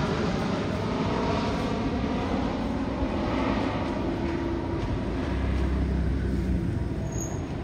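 Airbus A330 freighter on landing approach with its gear down, passing low overhead: a steady jet engine roar with faint held engine tones, and a deep rumble that swells about five seconds in.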